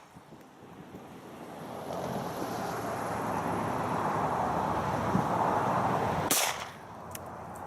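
A single pistol shot from a Colt 1911 in .45 ACP about six seconds in, with a small sharp click shortly after. Before the shot, a steady rushing noise grows louder.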